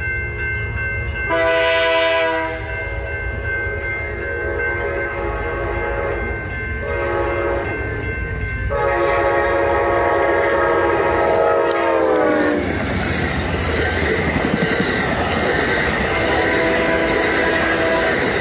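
Horn of an Amtrak P42DC diesel locomotive sounding three blasts: short, short, then long. The pitch of the long blast drops just before it cuts off as the locomotive passes. The rumble and wheel clatter of the passing train follow.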